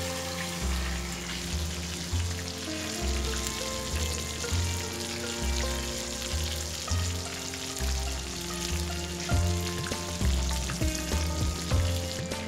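Spice-coated fish frying in hot oil in a kadai, a steady sizzle, under background music with a repeating low bass note.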